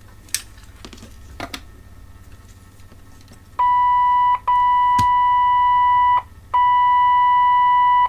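A steady, loud, mid-pitched electronic tone, a pure beep with overtones, comes on about three and a half seconds in and is keyed on and off in long stretches of one to two seconds with short gaps, like a test tone used while checking the CB radio's meter. Before it come a few light clicks.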